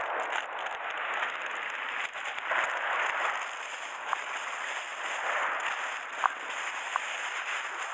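Thin plastic carrier bag rustling and crinkling as hands rummage in it, in swells, with a few short sharp clicks in the second half.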